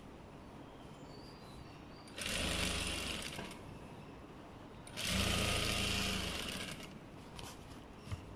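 Sewing machine stitching a seam in two short runs of rapid, even needle strokes, each a second or two long, with a pause between them. A single small click near the end.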